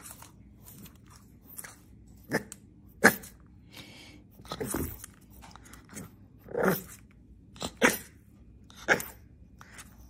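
A French bulldog puppy giving short barks, about eight in all at uneven gaps, a few of them sharper and louder than the rest.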